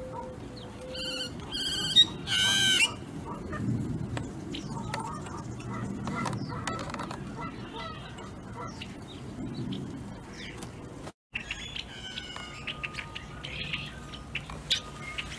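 Yellow-headed blackbirds calling at a ground feeding spot: a few loud, harsh calls one to three seconds in, then scattered short chirps from the flock.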